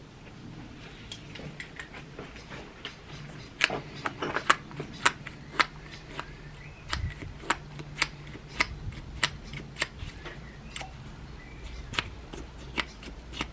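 Hand-operated diesel fuel primer pump with new O-rings being pumped by hand: a string of sharp clicks and small pops as the plunger is pushed in and out, irregular, about one or two a second, loudest a few seconds in. The new O-rings are not perfect but are making a seal.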